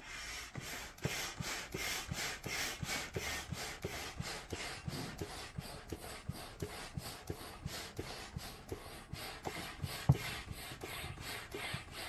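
Air pump worked in quick regular strokes, about three a second, each stroke a rasping rush of air, inflating the upper chamber of an inflatable flood barrier toward 13 psi. A single sharper knock comes about ten seconds in.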